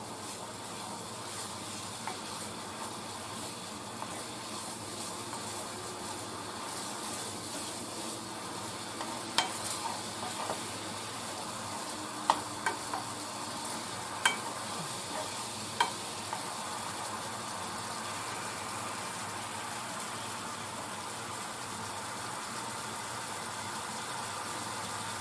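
Sugary rib glaze sizzling and bubbling in a nonstick pan as it reduces to thicken, stirred with a wooden spoon. Midway through, a handful of sharp knocks of the spoon against the pan.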